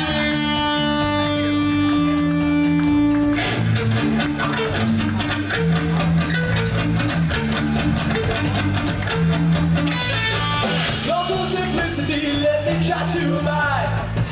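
Punk rock band playing live. An electric guitar chord rings out over ticking hi-hat for about three seconds, then bass and full drums kick in with the guitars. A voice comes in near the end.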